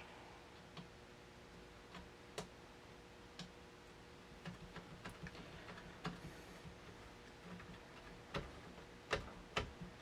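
Scattered small clicks and taps of a stainless-steel pump-action shotgun's parts being handled during reassembly, a few sharper, louder clicks near the end.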